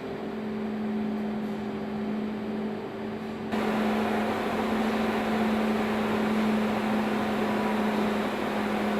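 Steady hum of steam boiler plant machinery, fans and motors, with a steady low drone under a rushing hiss. About three and a half seconds in it turns suddenly louder and brighter.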